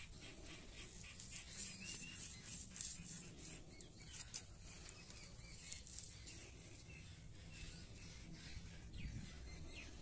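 Faint crackling and clicking as a lemon-tree cutting's stem is twisted and pushed into a hollowed red onion. A few faint bird chirps can be heard.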